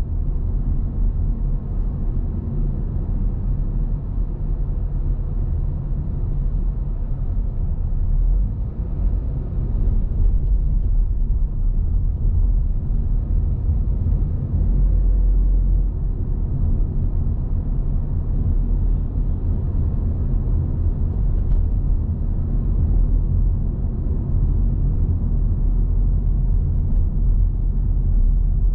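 Steady low rumble of a car being driven: engine and road noise with slow, slight swells in level.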